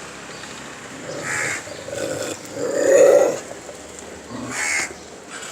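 Crows cawing: a few short harsh caws about a second apart, the loudest about three seconds in.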